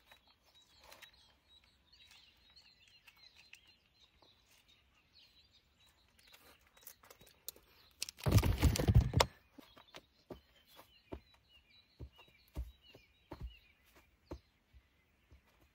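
Small birds chirping faintly in the background. About halfway through comes a loud rustling handling noise lasting about a second, as a plastic squeeze pouch is handled right at the microphone. Scattered soft knocks follow.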